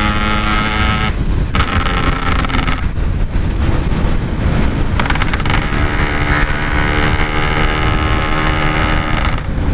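Yamaha RX-King single-cylinder two-stroke motorcycle engine running hard at speed through its aftermarket Packing Power exhaust, the steady engine note breaking off briefly about a second in and dropping away between about three and five seconds before coming back on. Wind rumble on the microphone runs underneath.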